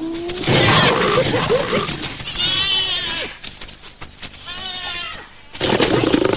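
Hyenas and lions fighting: harsh growling and snarling, with two high, rapidly quavering hyena giggles in the middle.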